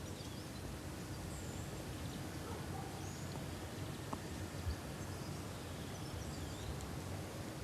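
Steady background hiss with faint, scattered high bird chirps, and a soft knock a little past halfway through.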